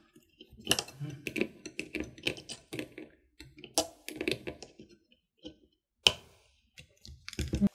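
Small irregular clicks and ticks of pliers and fingers handling nylon nuts and plastic parts while fastening a racing drone's flight-controller stack, with one sharper click about six seconds in.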